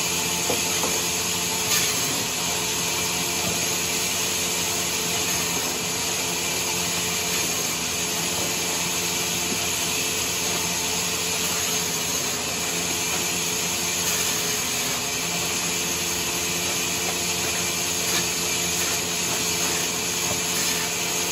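Sawmill machinery running steadily: a constant motor hum with a hissing whine over it, with a few faint knocks.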